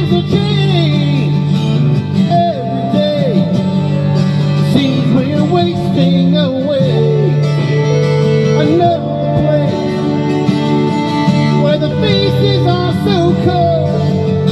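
Country-style music: plucked guitar over held chords, with a singing voice whose melody slides up and down in pitch.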